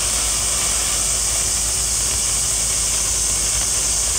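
A tako-odori ('dancing octopus') toy firework burning, spraying sparks from its base with a steady, even hiss.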